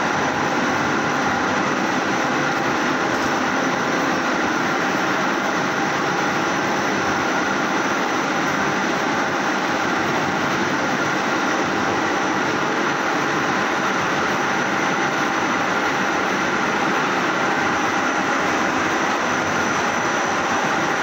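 Industrial laundry machinery, including a flatwork ironer, running with a steady, unbroken noise and a few faint high steady tones over it.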